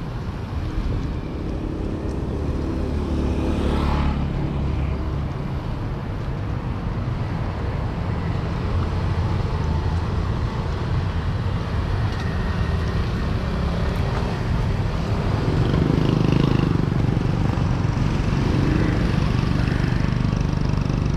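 Street traffic: motor vehicles running close by in a steady din, with one engine note rising as a vehicle passes about three to four seconds in and another swell of engine noise around sixteen seconds.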